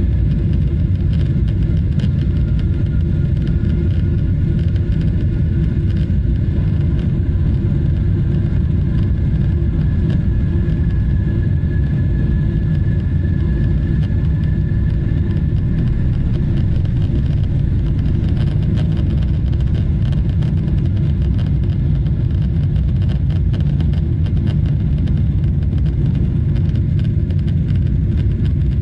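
Steady low drone inside the cabin of a Boeing 777-300ER, the engine and airflow noise of the airliner underway.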